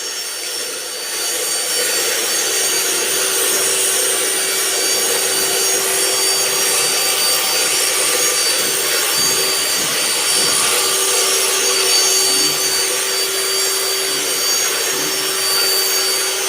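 Power tool running steadily with a rough cutting or grinding noise and a steady motor whine.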